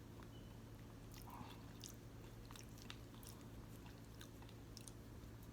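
Faint chewing: soft, scattered wet mouth clicks and smacks of someone eating fufu with egusi soup, over a low steady room hum.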